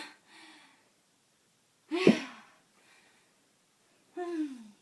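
A person's non-speech vocal sounds: a sudden loud burst of breath and voice about two seconds in, and a short voiced sound falling in pitch near the end, with quiet between.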